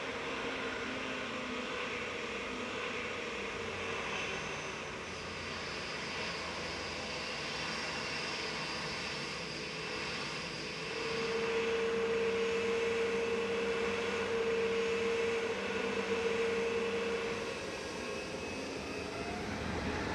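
Jet airliner engines running, a steady rumble with a whining tone. About halfway through it grows louder for several seconds, with a strong steady hum.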